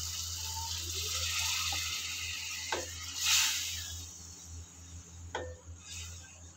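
Water poured into a hot aluminium kadhai of cooking ridge gourd, hissing, loudest a little after three seconds in, then dying down. A wooden spatula then stirs the vegetables, knocking the pan a few times.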